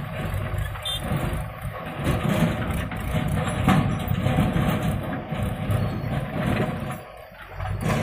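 Diesel engines of a JCB 3DX backhoe loader and tractors running steadily as the backhoe swings its loaded arm and empties earth into a trolley.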